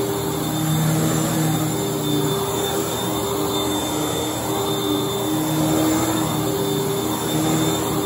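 Hoover Tempo upright vacuum cleaner running on carpet as it is pushed back and forth, a steady motor drone with a faint high whine that swells a little every couple of seconds with the strokes.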